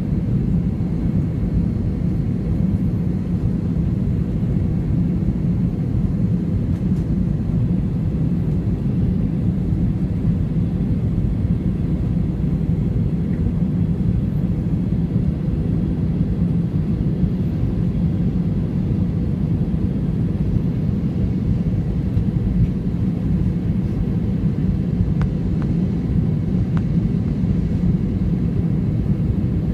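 Steady low rumble of an Airbus A320-216 cabin in flight: the noise of its CFM56 engines and the airflow around the fuselage.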